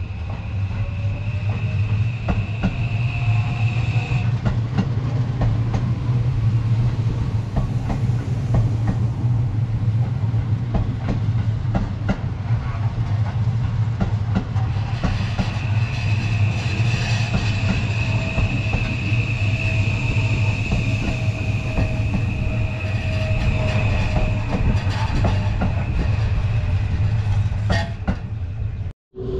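Seibu 001 series Laview limited express electric train pulling out of the station and running past, a steady rumble with wheels clacking over rail joints. A tone rises in pitch over the first few seconds as it picks up speed, and a high steady whine comes and goes.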